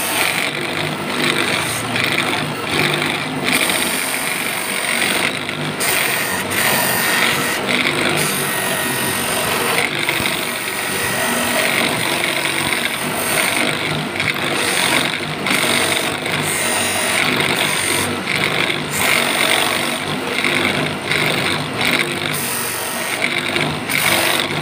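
Motor-driven polishing wheel running steadily with a monel ring held against it, buffing the ring to a final shine.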